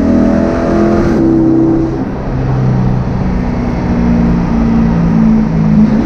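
2020 Chevrolet C8 Corvette's 6.2-litre V8 running through a custom exhaust while driving. The engine note changes pitch in several quick steps as the dual-clutch transmission shifts gears.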